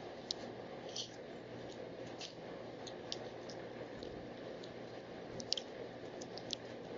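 Wild birds giving short, high chips at irregular intervals, about eight in all, over a steady low background hiss.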